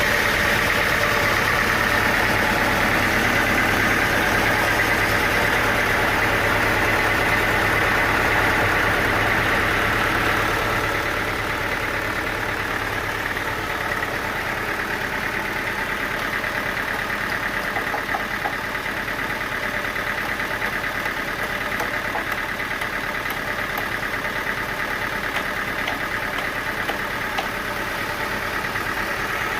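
An engine running steadily with a continuous mechanical drone; it gets a little quieter about eleven seconds in.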